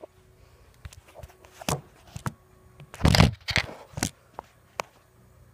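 A series of short knocks and clatters, about seven in all, irregularly spaced, the loudest cluster a little past the middle.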